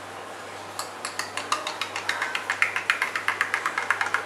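A metal spoon stirring turmeric powder into hot milk in a glass tumbler, clinking quickly and evenly against the glass, about six or seven clinks a second, starting about a second in.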